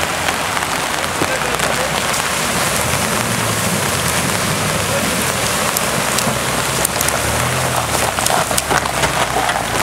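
Water splashing and spraying as a four-wheel-drive SUV drives through a flooded stream crossing, with its engine running low underneath. Near the end come sharp clicks of stones and gravel under the tyres as it climbs out.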